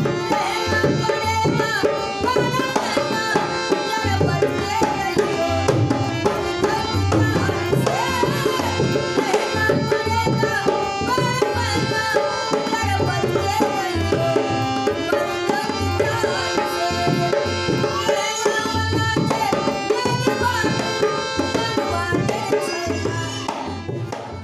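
Folk song with a woman singing to her own harmonium, the reedy chords held under her voice, and a rope-tuned dholak drum keeping a steady beat.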